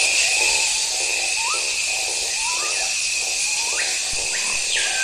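Amazon rainforest chorus of insects and calling animals: a dense steady high hiss with a constant high-pitched whine, short rising chirps scattered throughout, and one falling whistle near the end.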